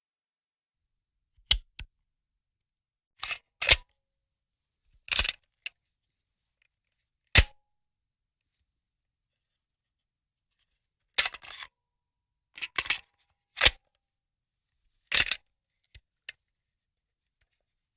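Gunfire sound effects: about a dozen short, sharp cracks, some single and some in quick pairs, with silent gaps of one to four seconds between them.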